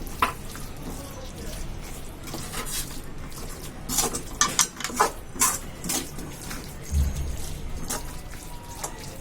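A spatula knocking and scraping against the cooking pan as marinated mutton liver is stirred and sautéed in the hot masala, over a steady frying sizzle. The knocks come singly at first, then in a quick cluster a few seconds in.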